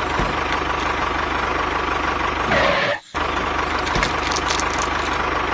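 A steady engine running sound with a low, even rhythm, cutting out briefly about three seconds in.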